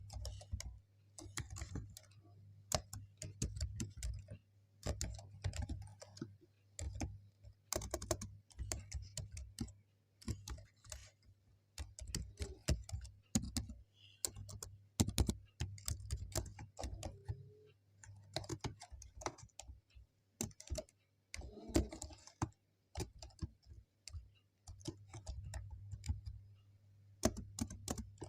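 Typing on a computer keyboard: runs of keystroke clicks in irregular bursts with short pauses between them, over a steady low hum.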